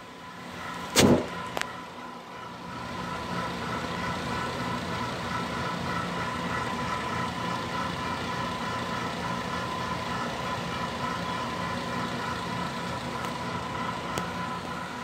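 Vintage Miami-Carey exhaust fan running: after a sharp click about a second in, the sound of the motor and moving air builds over the next couple of seconds, then holds steady as a rush of air with a constant hum and several steady whining tones.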